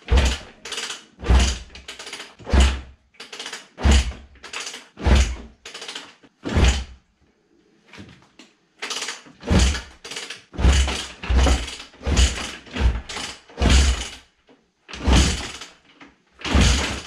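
Yamaha YZ426F single-cylinder four-stroke being kick-started over and over, a quick run of about twenty kicks, each a low thump and a rush of the engine turning over, with two short pauses, and it never catches. The owners put the failure to start down to a dirty carburetor overflowing out the bottom.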